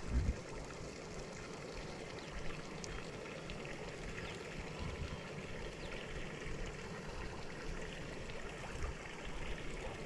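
Outdoor ambience beside a pond: a steady even hiss, with low gusts of wind buffeting the microphone about a quarter second in and a few times after.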